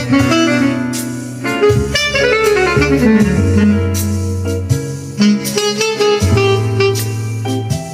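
Jazz music with a bass line under a melody, including a quick descending run of notes about two seconds in.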